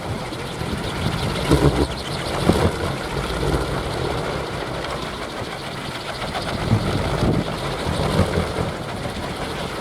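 Wooden kolecer wind propellers spinning fast in strong wind, giving a steady engine-like whirring drone that swells and eases with the gusts.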